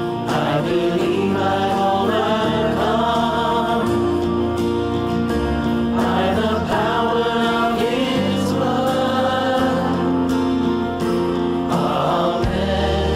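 Praise band performing a gospel worship song: several voices singing together over drums, electric guitar, bass guitar and keyboard.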